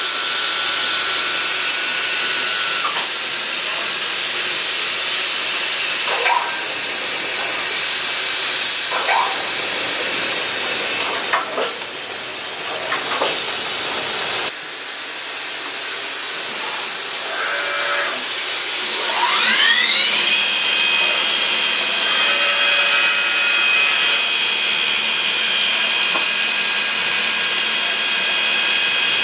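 A steady hiss, then about two-thirds of the way in the spindle of the Bridgeport Torq-Cut TC4G CNC mill spins up with a rising whine. It settles into a steady high-pitched whine as it runs at speed.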